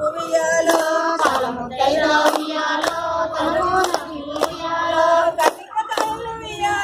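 A group of women singing a Telugu Bathukamma folk song in unison, clapping hands in time. There are about two and a half claps a second.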